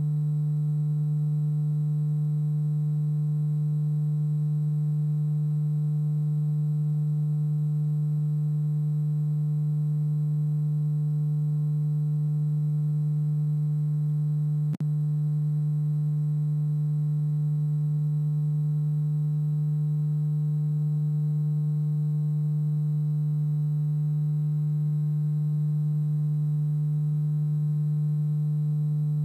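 Steady low electronic hum: one unchanging pitch with overtones, unbroken apart from a very brief dropout about halfway through.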